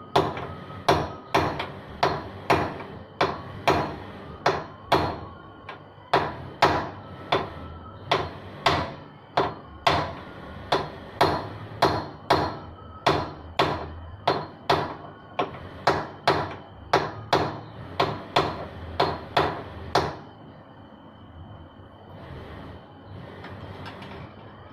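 Repeated hammer blows, steady at about two a second, stopping about twenty seconds in.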